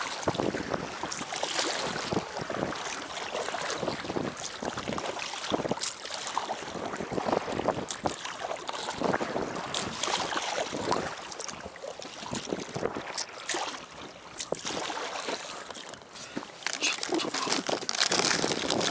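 Lake water splashing and lapping against the hull of an inflatable packraft, with wind buffeting the microphone; the splashing grows louder near the end.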